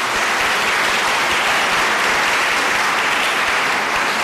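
A large seated audience applauding, a steady, dense clapping.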